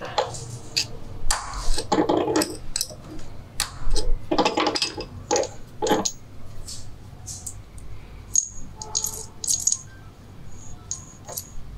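Steel transmission gears and shaft of a Minsk motorcycle gearbox clinking and rattling as they are worked with a screwdriver and slid along the shaft by hand. A quick run of louder metal clicks and knocks comes first, then lighter, higher ticks in the second half.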